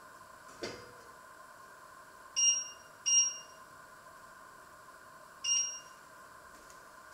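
A light knock, then three short electronic beeps from a kitchen appliance: two in quick succession and a third about two seconds later, over a faint steady hum.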